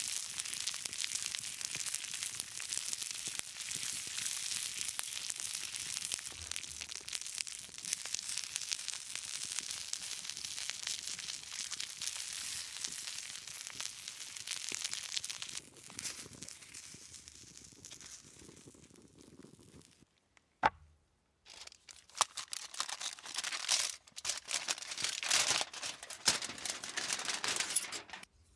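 Corn roasting in its husks over a campfire, crackling densely and steadily. After about twenty seconds it breaks off with a sharp click, then comes back as separate bursts of crackling and tearing.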